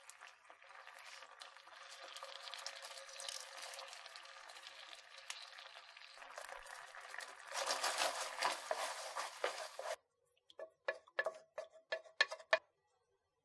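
Tomato sardine sauce bubbling and sizzling in a nonstick frying pan, louder for the last couple of seconds before it cuts off abruptly. Then a short run of wet drips and splats as the thin sauce is poured into a small ceramic dipping bowl.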